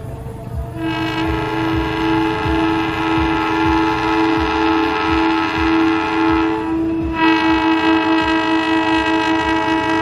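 Indonesian GE diesel-electric locomotive's multi-tone air horn sounding the Semboyan 35 long-horn signal: a long chord starting about a second in, breaking briefly near seven seconds, then sounding again. The locomotive's engine and wheels rumble underneath as it approaches.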